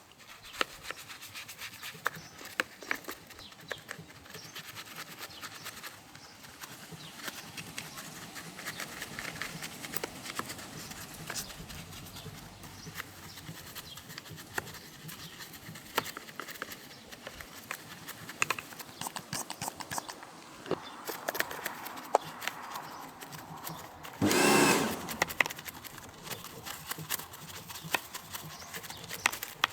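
Brush scrubbing mud off an RC car: a steady scratchy rubbing, with many small clicks and knocks of plastic parts being handled. About 24 seconds in there is a short, loud rush of noise lasting about a second.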